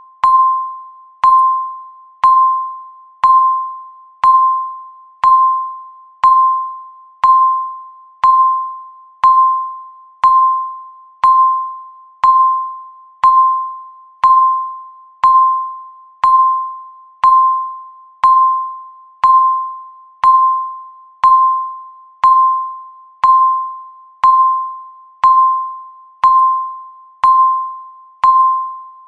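Countdown timer beeping once a second: a short electronic tone about 1 kHz, each starting with a click and fading quickly, in an even steady rhythm.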